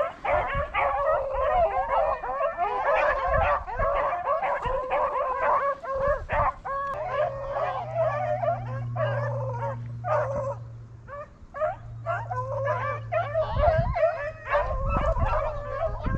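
A pack of rabbit-hunting dogs baying and yelping continuously, several voices overlapping, as they run a rabbit's track. A steady low hum comes in around the middle and fades out a few seconds later.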